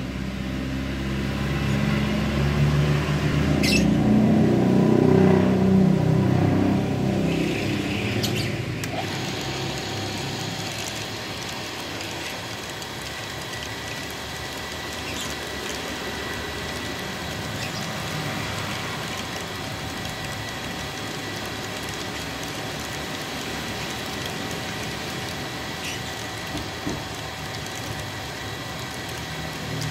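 Engine running: louder and rougher over the first eight seconds or so, then settling to a steady, quieter run from about nine seconds in.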